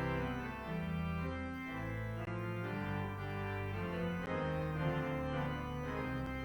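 Church organ playing a slow prelude of sustained chords over a held low bass, the chords changing every second or so.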